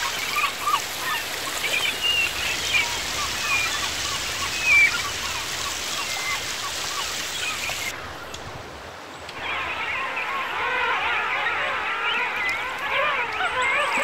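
River water running over a shallow rocky bed, with short scattered calls over it. After an abrupt change about eight seconds in, a dense chorus of many overlapping, wavering animal calls takes over above the water.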